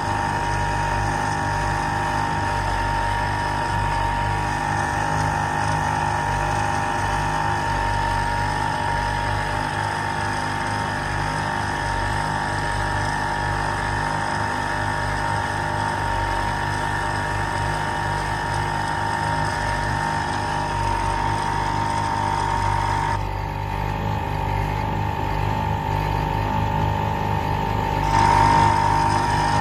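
1948 Evinrude Sportsman 1.5 hp two-stroke outboard motor running steadily, pushing the small boat along. The sound turns duller for about five seconds two-thirds of the way through, then comes back a little louder.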